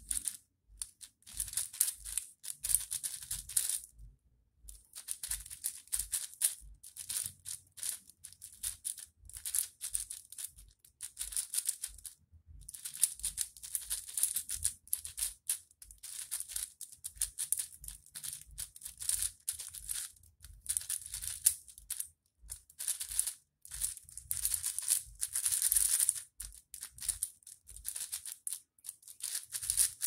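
Fast plastic clicking and rattling of a YJ MGC 6x6 speedcube as its layers are turned rapidly by hand, in quick bursts broken by short pauses, one about four seconds in and another near the middle.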